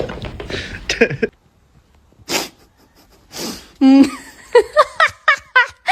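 A dog sneezing twice, about a second apart, followed by a quick run of short vocal sounds.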